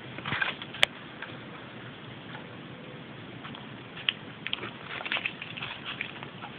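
Paper rustling and crinkling as a kitten paws and bites at a pile of papers and envelopes, in short scratchy spells, with a single sharp click just under a second in and a run of small rustles and ticks in the last two seconds.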